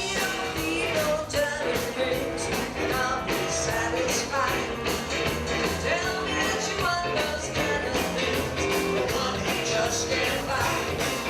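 Rock-and-roll music playing steadily, with a beat and what may be a singing voice.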